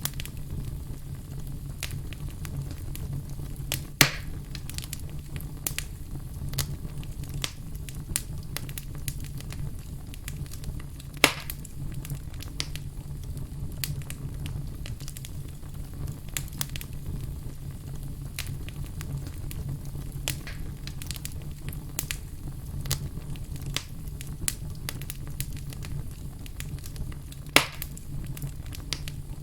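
Logs burning in a fireplace: a steady low rumble of flames under constant crackling, with three louder, sharper pops from the wood spread through.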